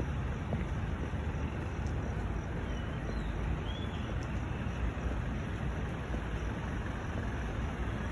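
Road traffic on a wet road, a steady rush of tyres and engines, with wind buffeting the microphone. Two faint short chirps sound about three and four seconds in.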